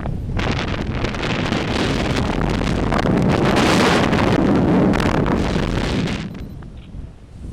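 Wind blowing hard across the microphone: a loud rushing noise that swells about half a second in and dies down about six seconds in.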